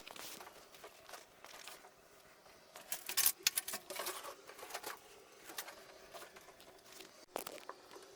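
Irregular rustling, tearing and tapping from hand work with materials in a small room, with a busy cluster of sharp clicks and scrapes about three to four seconds in.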